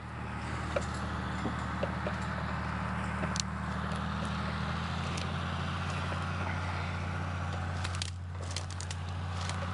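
A John Deere tractor's diesel engine idling steadily, with scattered light clicks and cracks on top.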